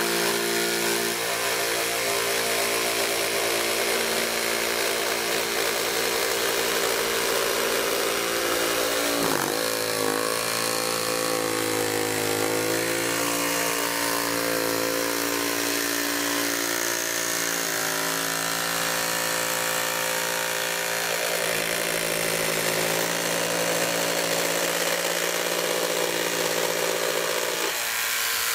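Makita JV001G 40V XGT barrel-grip jigsaw running steadily while it cuts a curve through 45 mm timber at a 45-degree bevel, on its highest orbital setting with an old blade. The motor's pitch sags and recovers several times as the cut loads it, most clearly about nine seconds in.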